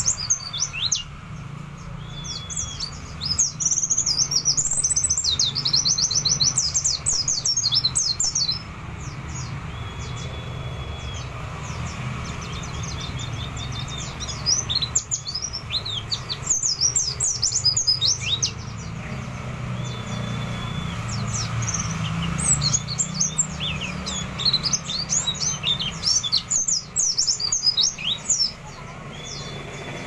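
Caged white-eye (pleci) singing a long, fast, varied song of high chirps and rapid trills in bouts with short pauses, mixing in calls copied from other birds. A steady low hum runs underneath.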